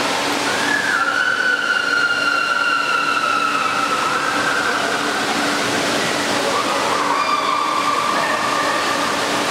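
Steady rushing of water from water-park slides and a splash pool, echoing in a large indoor hall. Over it come two long, high-pitched cries, each held for a few seconds, typical of riders screaming on the way down a slide.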